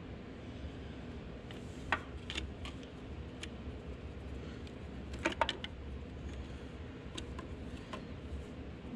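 Steady low hum under scattered light clicks and metallic clinks of handling in a small workshop, with the loudest cluster of clicks about five seconds in.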